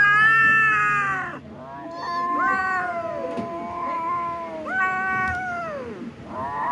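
Kittens yowling as they wrestle: a string of long, drawn-out meows that fall in pitch at their ends and overlap one another, the first the loudest.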